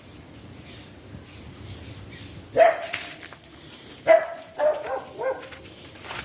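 A dog barking: one bark about two and a half seconds in, then a quick run of three or four barks a second and a half later.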